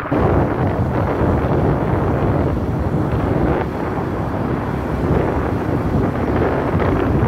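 Wind buffeting the microphone of a moving vehicle, a steady rush with road and vehicle noise underneath, coming in suddenly at the start.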